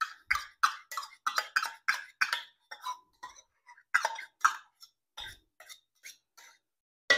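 Barbecue sauce being scraped out of a stainless steel measuring cup into a mixing bowl: a run of short metallic scrapes and clinks, about two or three a second, thinning out after about five seconds.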